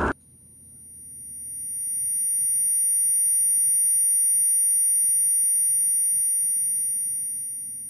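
A steady, high-pitched electronic ringing tone with several pitches at once. It swells in over about two seconds, holds, and fades away near the end, over a faint low hum.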